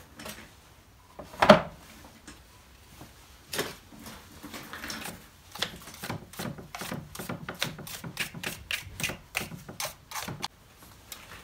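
Chainsaw chain and guide bar handled by hand: a sharp knock about a second and a half in, then a quick run of clicks, about three a second, through the second half.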